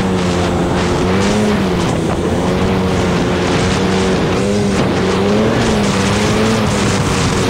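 ATV engine running steadily while riding, its pitch rising and falling slightly with the throttle, over a constant rush of wind and tyre noise on a gravel and snow trail.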